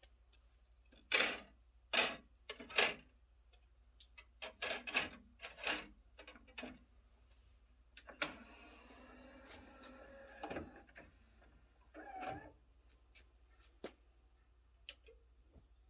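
Yamaha CDC-655 five-disc CD changer mechanism working. A series of clicks and clunks is followed by a motor whirring steadily for about two and a half seconds, then more clunks and a few light ticks before playback.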